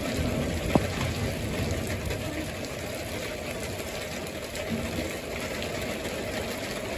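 Steady rain falling in a thunderstorm, with one sharp click about a second in.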